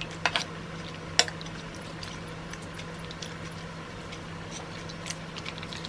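Metal ladle clinking twice against a stainless steel pot of soup in the first second or so, followed by faint small ticks over a steady low hum.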